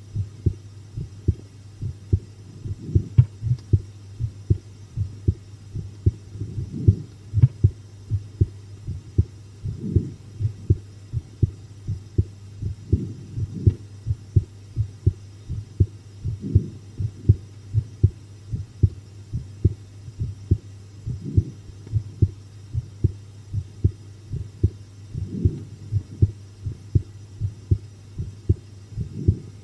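Human heartbeat heard close up: a steady rhythm of deep, muffled thumps over a constant low hum.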